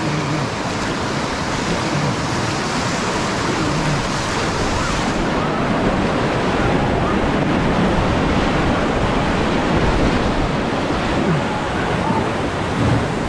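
Loud, steady rush of river whitewater rapids, heard close at water level from an inflatable kayak running the rapid, with water churning and splashing around the boat.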